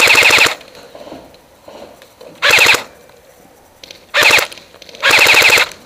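Airsoft electric rifle firing four short full-auto bursts, each a rapid even chatter of about half a second, the last one a little longer.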